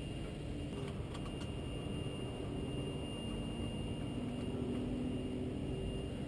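Steady low hum of a vehicle engine running in the background, its pitch creeping up slightly in the second half, with a few faint clicks about a second in as metal parts are handled at a brake caliper.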